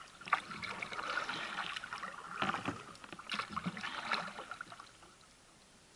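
Kayak paddle blades splashing into calm water, a stroke about every second, dying away about five seconds in.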